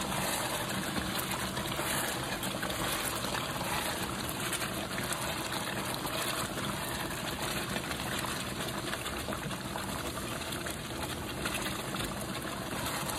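Orange beef sauce bubbling and sizzling steadily in a skillet as it boils down and thickens.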